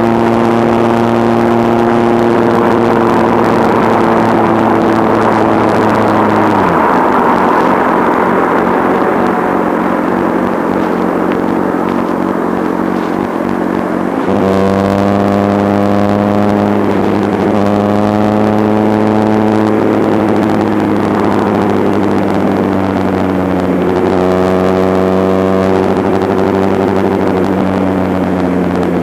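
Kawasaki Z750 inline-four motorcycle engine through Ixil underseat conical silencers, heard while riding. It holds a steady cruising note for the first six seconds, then the note drops away and a rush of wind and road noise takes over. About halfway through the engine comes back in, its revs climbing and dropping back several times.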